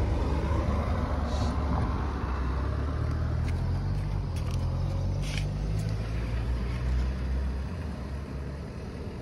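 A motor vehicle's engine runs in a low, steady rumble whose pitch drifts slowly, and it fades near the end. A few faint clicks and knocks sound over it.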